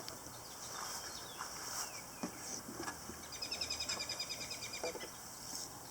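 A bird trilling in the background: a fast, even run of short high notes lasting about a second and a half, past the middle. A few faint clicks and knocks sound here and there.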